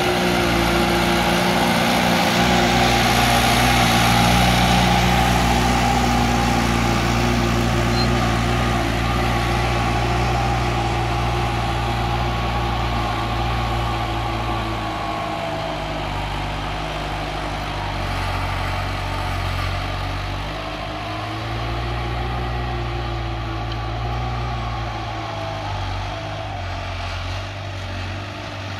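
New Holland TT4.75 tractor's diesel engine running steadily under load as it pulls a tine plough through the soil. The engine note shifts and wavers in pitch from about halfway through, and the sound grows gradually fainter.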